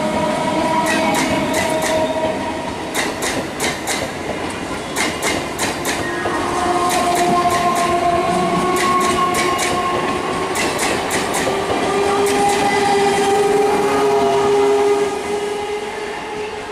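Indian Railways EMU local train passing at speed: the wheels click over the rail joints in quick groups, with a steady whine underneath. The sound drops away near the end.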